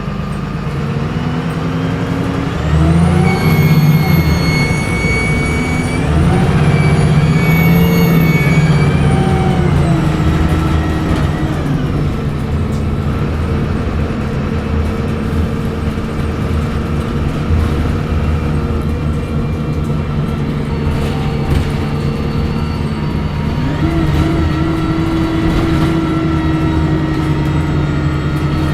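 VDL SB200 Wright Pulsar 2 bus's diesel engine accelerating through its gears, with a high turbo whine that rises and falls twice in the first ten seconds. It then runs at a steady speed, and the engine note climbs again about 23 seconds in.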